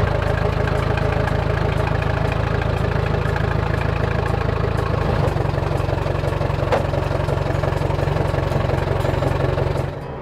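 A large engine idling steadily, with its energy low and even; the sound drops away sharply near the end.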